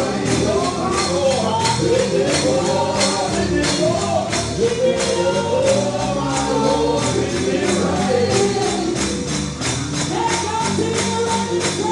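Gospel song: singing voices over a tambourine struck on a steady beat.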